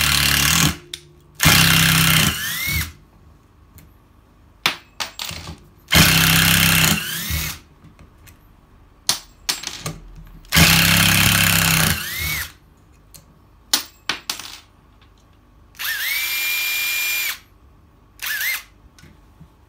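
Makita M693D 12V impact driver driving wood screws into a pine board, in several bursts of rapid hammering a second or two long. Near the end it gives a steadier, even whir without the hammering for about a second, then a short blip.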